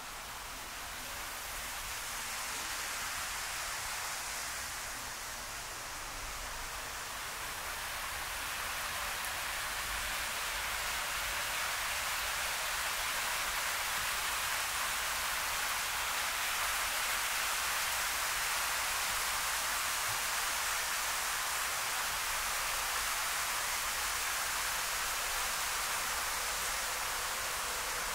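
Steady rushing hiss, like falling water or rushing air, that swells over the first ten or so seconds and then holds.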